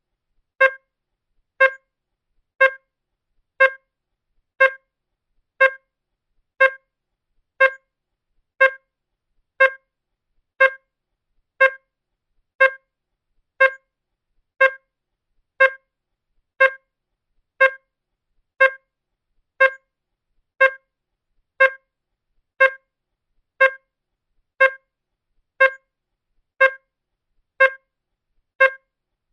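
A beep sound effect: a short, mid-pitched beep repeating evenly about once a second, with silence between the beeps.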